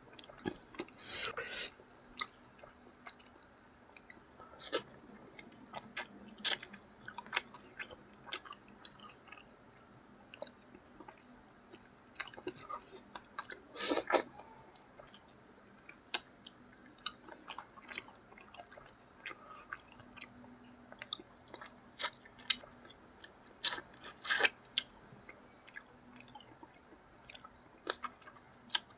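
Close-miked chewing and biting as someone eats catfish and rice by hand: a string of short clicks and smacks, with louder bursts about a second in, around the middle, and a few seconds before the end.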